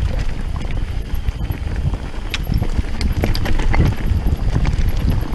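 Mountain bike rattling and clattering down a rough, rocky singletrack: a steady low rumble of tyres on dirt and stones with many irregular knocks and clicks from the bike, and some wind on the microphone.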